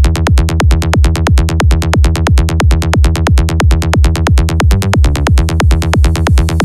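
Electronic dance music with a fast, steady drum-machine beat and heavy bass, dropping in abruptly at the start.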